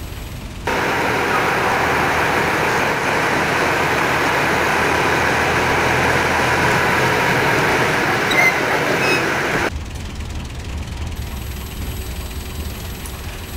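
A bus driving, a steady loud rush of engine and road noise that cuts in sharply about a second in and cuts off near ten seconds. It gives way to the bus engine's low rumble heard from inside the cabin.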